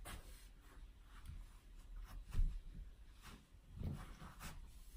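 Faint rustling and soft handling sounds, like fabric being moved, with a dull thump about two and a half seconds in.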